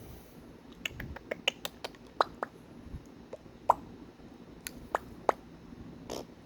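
Parrot making a string of sharp, irregular clicks and pops with its beak and tongue, a few of them with a short ringing note.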